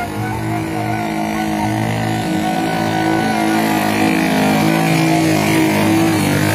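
A small motorcycle's engine running as it approaches, growing louder from about halfway through.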